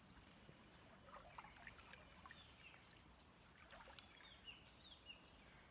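Near silence: faint trickling and small ticks of water in a shallow stream.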